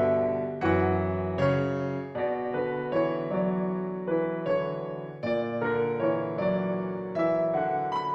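Background music: a gentle piano or electric piano piece, chords and melody notes struck about every half second.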